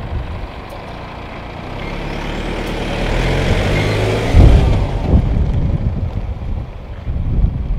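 A vehicle driving past close by: engine and tyre noise swell over a few seconds, peak about halfway through, and fade again. There are two loud low thumps as it goes by.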